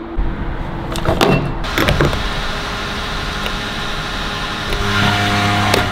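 Petrol pump nozzle dispensing Shell V-Power petrol into a car's filler neck: a steady rush of flowing fuel, with a few sharp clicks between one and two seconds in as the nozzle is handled. A steady hum joins near the end.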